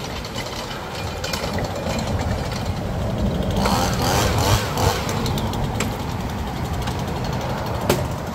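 A motor vehicle engine running steadily, with a short wavering high tone about halfway through and a single sharp click near the end.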